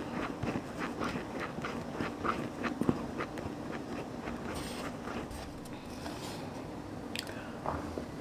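A person chewing crunchy food close to the microphone: a run of short crunches, about two or three a second, that thins out about halfway through.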